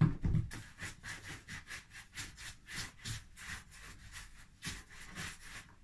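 Hands rolling bread dough back and forth on a floured wooden board: a quick, rhythmic run of soft rubbing strokes, several a second, after a couple of dull thumps at the start.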